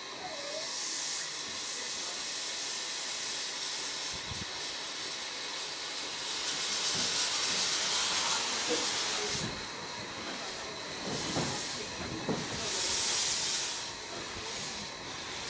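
Narrow-gauge steam locomotive Mh.1 hissing steam from its cylinder drain cocks as it starts away, in loud surges, loudest past the middle and again near the end. A few dull low thumps come through.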